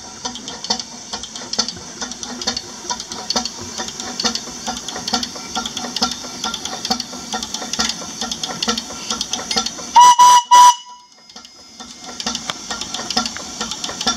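Miniature traction engine running on compressed air, its exhaust beating in a quick, steady rhythm. About ten seconds in, a whistle gives three loud short toots, the first two run together. The engine beat then drops away for a second before picking up again.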